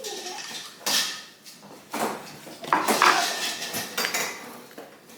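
Plates and cutlery clinking and clattering as breakfast is dished up, in about four separate knocks, the loudest about three seconds in.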